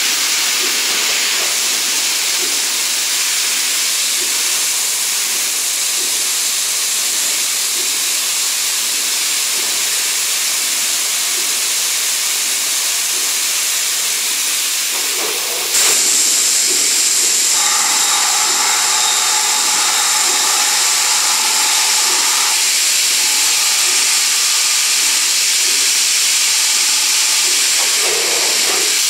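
Coolant spraying and hissing inside a Brother Speedio M300X3 5-axis machining center while it machines a part: a loud, steady hiss that gets louder about halfway through. A whine joins it for about five seconds after that.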